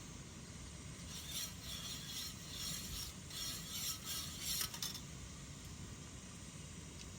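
Irregular scratchy, rustling handling noise for about four seconds, starting about a second in.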